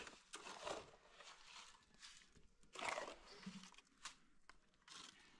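Chickens clucking faintly, with a short sharp knock about four seconds in.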